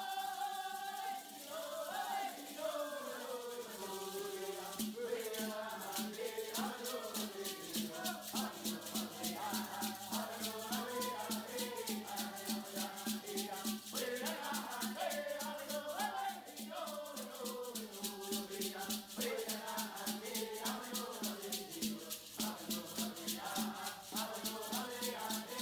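Background music: a rattle shaken in a steady, fast beat under a melody.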